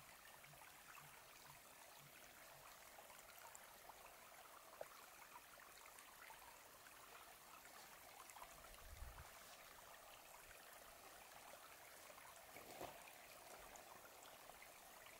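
Near silence: a faint steady hiss of open-air ambience, with a few faint soft knocks.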